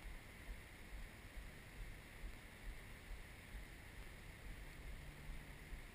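Quiet woodland ambience: faint, uneven wind rumble on the microphone under a steady soft hiss.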